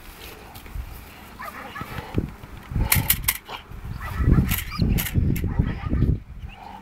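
Five-and-a-half-month-old Belgian Malinois puppy vocalizing in a run of short, low bursts in the second half while biting and tugging a bite sleeve, with a few sharp clicks about three seconds in.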